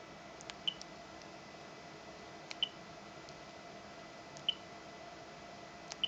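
Keys pressed on a Siemens DECT cordless handset, four presses about two seconds apart, each a soft click followed by a brief high key beep, over faint room tone.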